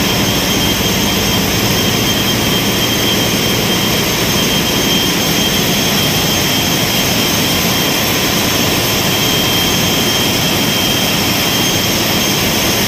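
Ship's engine room with a large in-line multi-cylinder diesel engine running: a loud, steady drone of machinery with a constant high-pitched whine on top.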